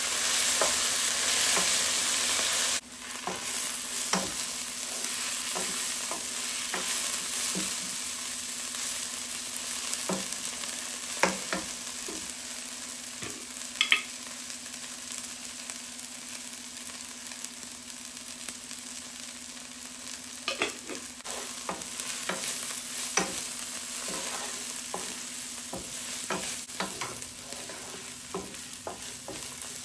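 Food frying and sizzling in a pan while being stirred, with a spoon clicking and scraping against the pan now and then. The sizzle is louder for about the first three seconds, then drops suddenly.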